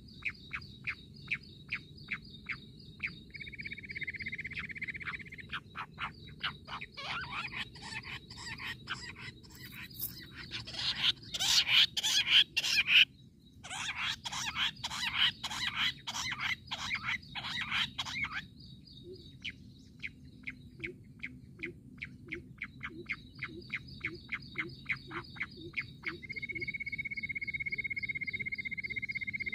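Jungle bush quail calling: long series of quickly repeated short notes that speed up and are loudest around the middle, break off for a moment, resume, then thin out into softer, spaced notes. A steady high trill runs underneath, with a steady buzz joining near the end.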